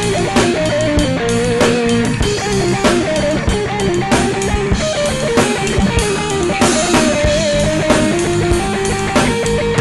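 Heavy metal band playing an instrumental passage: an electric guitar lead line over drum kit and bass, with no vocals.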